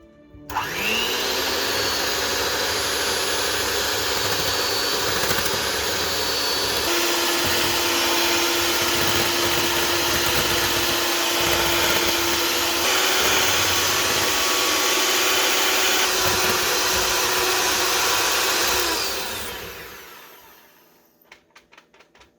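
Electric kitchen mixer motor spinning up with a rising whine, running steadily with a couple of small shifts in pitch, then winding down about two seconds before the end.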